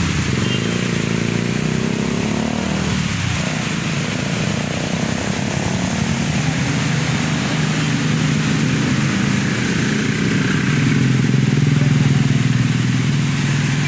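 Motorcycle engine running at a steady speed, its pitch dipping and recovering about two to three seconds in, over a steady rushing hiss.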